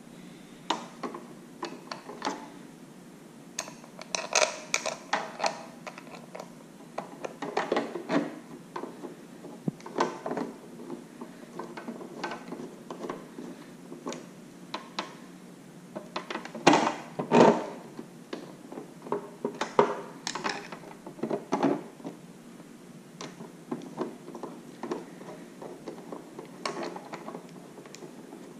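Hand tools and small parts handled on a workbench during assembly: irregular clicks, taps and knocks, with the loudest cluster about two-thirds of the way through.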